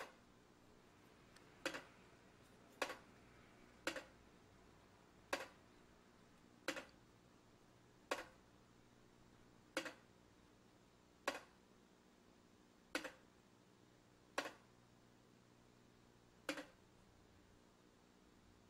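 Tipping-bucket rain gauge of a La Crosse WS1613IT weather station tipping over and over as water trickles in: sharp plastic clicks, each with a small second knock, every one to two seconds. Each tip registers 0.5 mm of rainfall.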